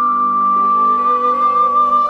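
Background music: a flute-like lead holds one long high note over sustained chords.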